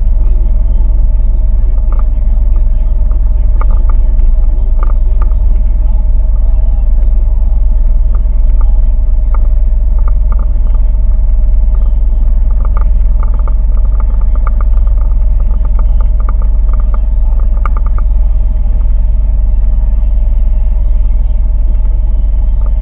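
A boat's engine running steadily, a loud low rumble with a constant hum over it and faint scattered ticks.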